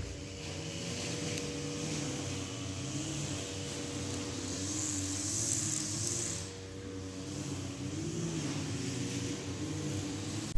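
Low hum of distant road traffic, with a vehicle passing louder about five to six seconds in.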